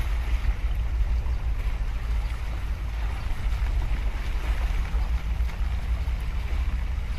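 Wind buffeting the microphone as an uneven low rumble, over the hiss of choppy harbour water washing against the breakwater.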